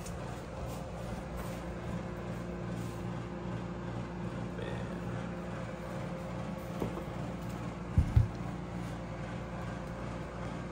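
Steady low mechanical hum of a running appliance, with two quick low thumps close together about eight seconds in.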